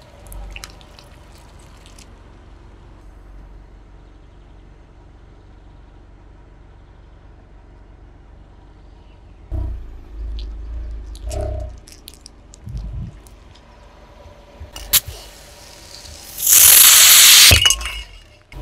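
A car's tyre rolling over and crushing an object, against a low rumble. About halfway through come a few dull thuds. Near the end a sharp crack is followed by a loud hissing burst lasting about a second.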